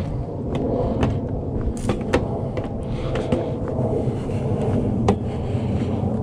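Footsteps on a wooden boardwalk: irregular sharp knocks over a steady low rumble.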